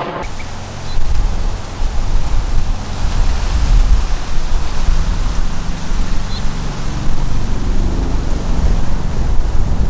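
Bell Boeing MV-22 Osprey tiltrotor in helicopter mode, its twin rotors giving a deep, uneven rumble that surges and wavers. Wind gusts on the microphone add to it.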